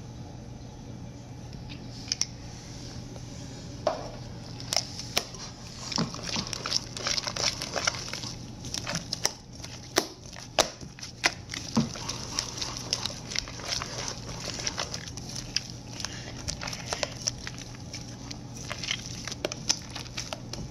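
Hands kneading and squeezing sticky slime in a glass bowl: wet squelching with many small clicks and pops, sparse at first and much busier from about four seconds in.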